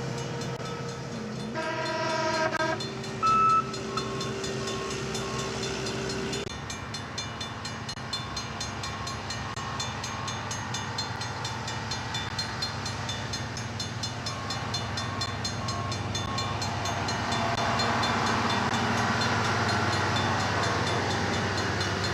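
Convoy of rail-mounted track maintenance equipment rolling along the rails through a grade crossing, a steady rumble and clatter that grows louder in the last few seconds as machines pass close. A horn sounds about two seconds in, followed by a short toot, and a crossing bell dings at intervals.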